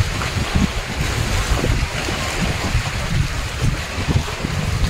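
Wind buffeting the microphone: a steady rush with irregular low rumbles.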